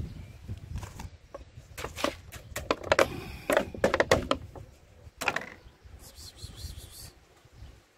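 Thin clear plastic bag crinkling and crackling as it is handled, a dense run of crackles from about one second in to about five seconds in.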